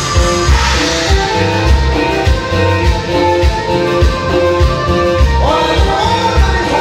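Live band music: electronic keyboards playing over a steady bass beat, with a new melody line sliding in about five seconds in.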